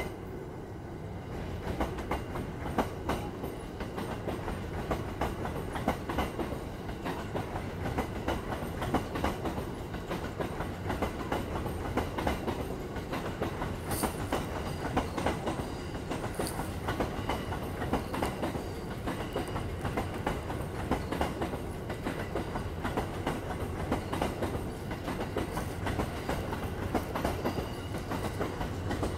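Cassiopeia sleeper train's E26 series passenger cars rolling past: a steady rumble with a fast, continuous clickety-clack of wheels over the rail joints. Two short high-pitched sounds come about halfway through.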